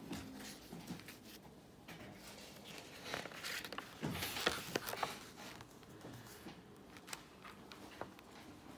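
Pages of a spiral-bound sketchbook being turned and handled: paper rustling with small taps and clicks, loudest about three to five seconds in.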